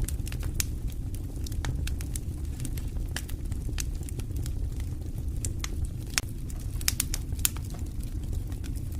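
Wood campfire crackling and popping: irregular sharp snaps over a steady low rumble, with a few louder pops about six to seven and a half seconds in.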